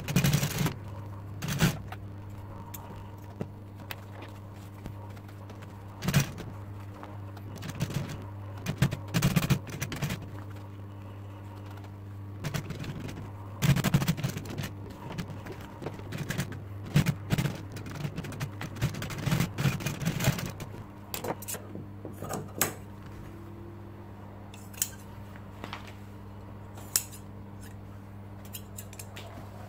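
Industrial Seiko sewing machine stitching vinyl upholstery in short runs, its motor humming steadily between them. The stitching and handling stop a little over twenty seconds in, leaving the motor hum with a few isolated clicks.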